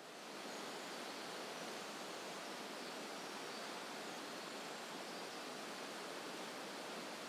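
Shallow mountain stream running over rocks: a steady, even wash of water that fades up in the first half-second and then holds level.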